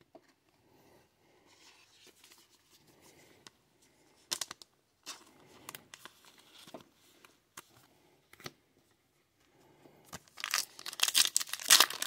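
A foil trading-card pack being torn open and crinkled, loud and crackling, starting about ten seconds in. Before that there are only a few faint rustles and clicks.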